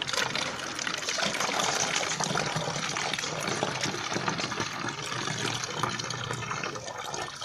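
Coconut water being poured from a bowl into a plastic bottle: a steady stream of liquid filling the bottle, which stops at the end.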